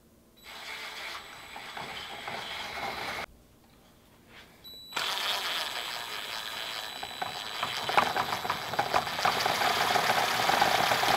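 Cordless drill running, spinning an empty spool to wind braided fishing line off a supply spool: a short run, a pause of about two seconds, then a longer, louder run with a steady high whine and a growing clatter.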